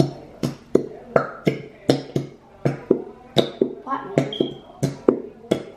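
Background music: a plucked-string tune over a steady beat, about three notes a second.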